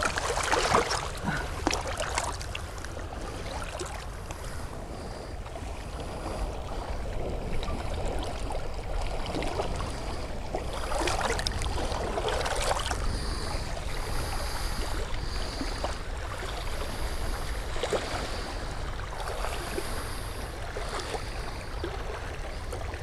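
Shoreline water sloshing and splashing, with wind rumbling on the microphone; louder splashes come about a second in and again around eleven to thirteen seconds as a hooked channel catfish is held in the water to be released.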